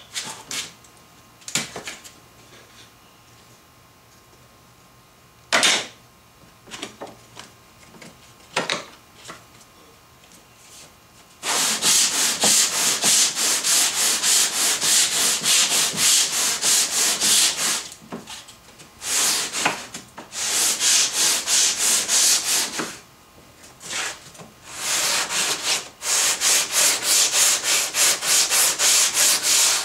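Sandpaper on a hand-held wooden sanding block rubbed along a wooden board. There are a few separate strokes in the first ten seconds, then from about eleven seconds in fast back-and-forth sanding at several strokes a second, with brief pauses.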